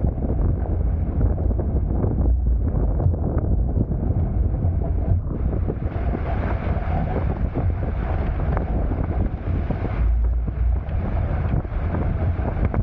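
Wind buffeting the microphone with a heavy low rumble, over water rushing and splashing past the hulls of a Hobie Tiger F18 catamaran under sail. The water hiss grows louder and brighter about six seconds in.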